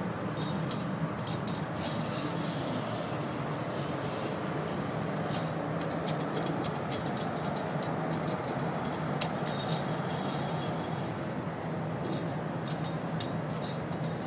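Steady rooftop background noise with a low hum, over which come irregular light metallic clicks and jingles from a fall-arrest traveller sliding along a steel lifeline cable and the worker's harness hardware moving as he walks.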